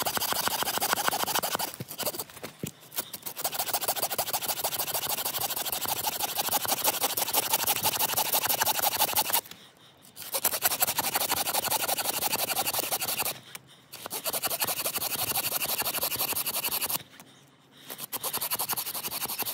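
Rapid, fine scraping in several long runs, broken by a few short pauses.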